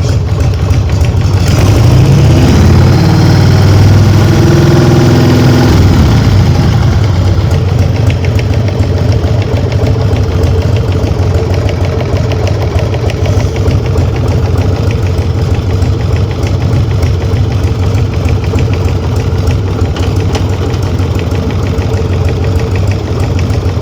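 Harley-Davidson Sportster V-twin engine running on a stand with the rear wheel driven, revved up and back down over the first few seconds, then held steady with a fast, regular knocking from the left front of the engine. A mechanic traced the knock to the primary drive: a failed primary chain tensioner and a loosened alternator nut with stripped threads.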